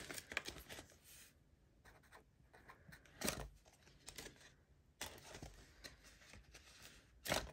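Faint rustling and shuffling of paper envelopes and banknotes being handled while cash is counted out, with two louder rustles, about three seconds in and near the end.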